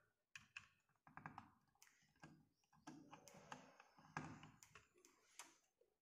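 Faint, irregular clicks and taps of a screwdriver and a wire being worked into a screw terminal on a DOL starter's contactor.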